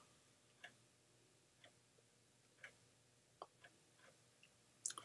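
Near silence broken by faint, scattered clicks, about one a second with a couple close together near the end: small metal parts of the air hammer's air gate assembly being handled and fitted by hand.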